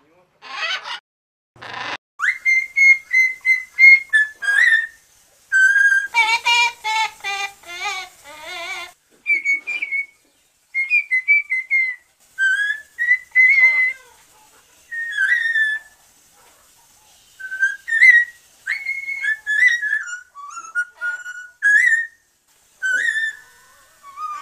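Amazon parrot whistling: a string of short whistled notes, some held and some gliding, with a fast warbling run in the middle. Two short harsh calls come near the start.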